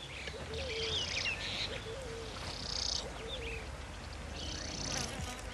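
Outdoor wildlife ambience: birds chirping and calling, with a few short spells of high insect buzzing.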